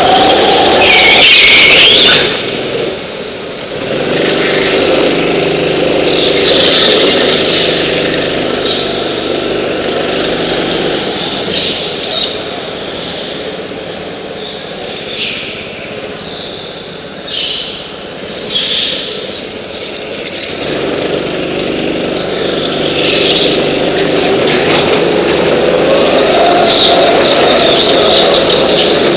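Several go-kart engines running hard on a track, with tyre squeal in the corners. Loud near the start and again toward the end as karts pass close, quieter in between, with a few short sharp knocks in the middle.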